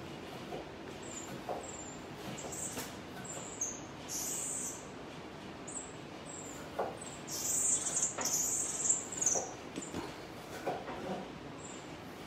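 Marmoset giving short, very high-pitched chirps, scattered through and bunched into a louder, quick run of calls around the middle, with a few soft knocks as it moves about the cage.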